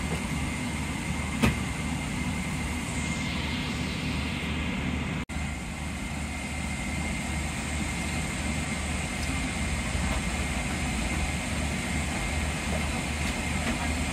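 Steady aircraft cabin noise inside a Boeing 777-300ER, a constant ventilation and engine rush with a low hum. There is a single sharp click about a second and a half in, and the sound drops out for an instant a little past five seconds.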